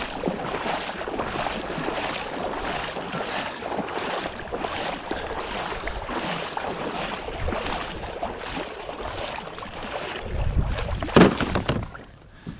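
Water splashing and dripping as a wet cast net is gathered up by hand out of shallow water, then a louder knock near the end as the net is laid on the plastic kayak.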